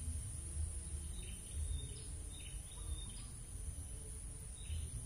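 Outdoor ambience: small birds chirping in short, high calls every second or so over a steady low rumble.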